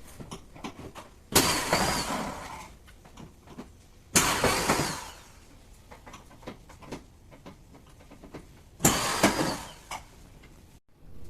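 A washing machine that has broken down gives three short, loud, noisy bursts of about a second each, a few seconds apart, with small clicks and knocks between them.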